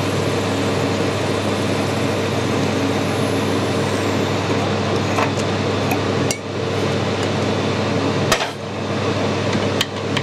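Metal lathe running with a 9.5 mm cobalt drill held in the tailstock cutting into the spinning bar, a steady machining noise over the lathe's gear hum. Three sharp clicks come in the second half as the drill is backed out of the hole.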